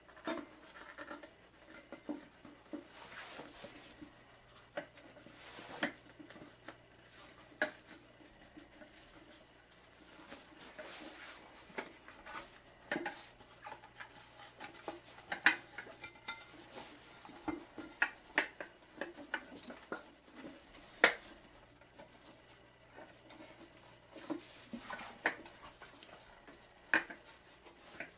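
Irregular clinks, knocks and rubbing of hands working a small mower tire and its wheel on a metal mini tire changer while an inner tube is fitted. Two knocks, about halfway through and about three-quarters through, stand out as the loudest.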